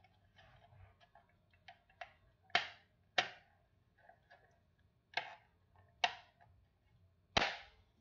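Small fire alarm parts being handled and fitted: a string of sharp clicks and knocks, with five louder ones in the second half among lighter ticks.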